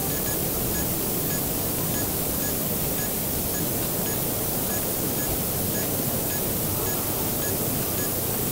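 Steady, even hiss-like ambience of a large motor-show exhibition hall, with faint short high blips about twice a second.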